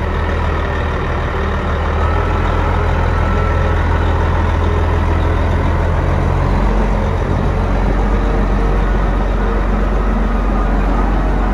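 Diesel engine of a Toro 50D underground mining dump truck idling steadily, low-pitched.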